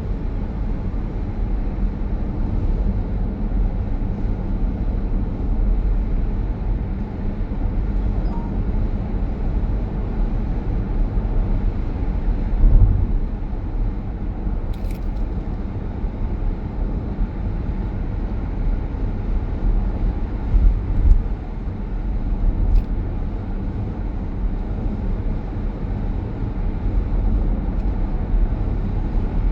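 Steady low road and tyre rumble inside the cabin of a moving electric car, with a couple of faint ticks.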